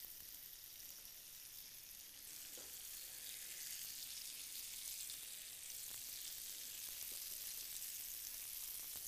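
Burger patties and Spam-and-pineapple kebabs sizzling on an electric indoor grill, a steady high hiss. A few faint clicks come from metal tongs lifting the patties.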